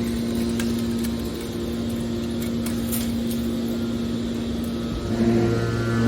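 Factory machinery running with a steady hum and a few faint clicks. About five seconds in, a lower note joins and the running gets louder.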